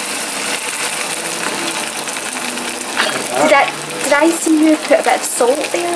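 Salmon fillet frying in hot oil in a pan: a steady sizzle, with speech over it in the second half.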